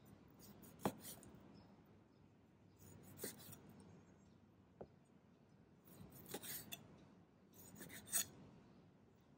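Chef's knife slicing through raw pork shoulder and knocking down onto a wooden cutting board: faint rasping cuts with about four sharp knocks.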